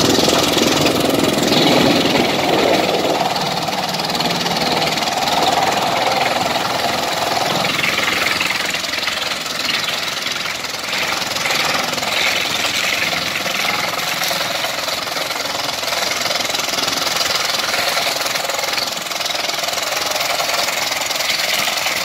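Vantec 750 R8 forest drum chipper running under load, its engine and cutting drum chipping logs and blowing wood chips out the discharge chute. The sound is steady and dense, and a mid-pitched part of it drops away about eight seconds in.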